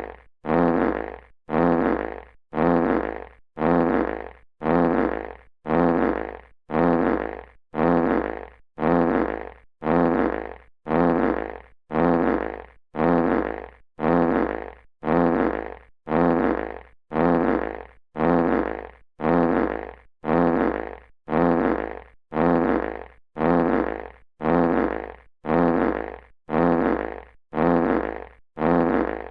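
Classic fart sound effect on a loop: the same short fart repeats about once a second, each one starting loud and trailing off.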